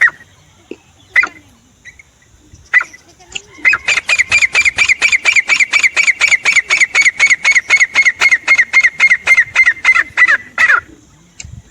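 Francolin (teetar) calling: a few single sharp notes, then from about four seconds in a fast, even run of about five notes a second that stops shortly before the end.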